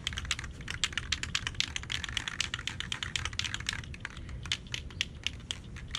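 Mixing ball rattling inside a Rust-Oleum Rust Reformer spray can as the can is shaken hard: rapid, steady clicking, several times a second, as the paint is mixed before spraying.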